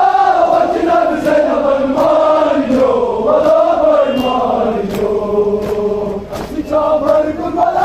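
A crowd of mourners chanting a Kashmiri noha together in a slow, wavering melody, with sharp beats about every half to three-quarters of a second.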